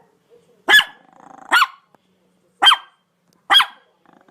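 Dog barking: four short, loud barks, each falling in pitch, about a second apart.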